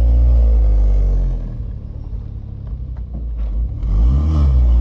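Car engine revving as it is driven: the revs fall away over the first second and a half, the engine goes quieter with a few clicks, then a quick rise and fall of revs near the end.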